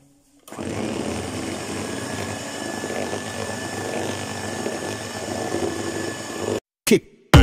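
Electric hand mixer running steadily, its beaters whipping instant coffee, sugar and hot water toward a stiff dalgona foam. It starts about half a second in and cuts off abruptly near the end, where music with a beat comes in.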